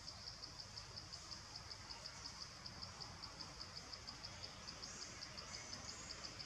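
An insect chirping in a steady, even rhythm of short high pulses, about five a second, over a faint low background rumble.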